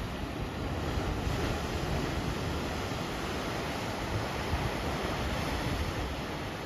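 Ocean surf washing against a rocky shoreline, a steady rushing that swells a little about a second in and again later on, with wind rumbling on the microphone.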